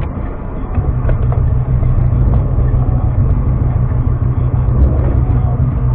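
Motor vehicle on the move: a steady low engine and road drone that swells about a second in and holds.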